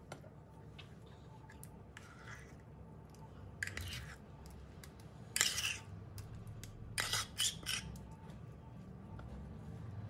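Metal spoon scraping thick chocolate pastry cream out of a ceramic bowl and spreading it on a cake, in a few short scrapes, the loudest about halfway through, over a low steady hum.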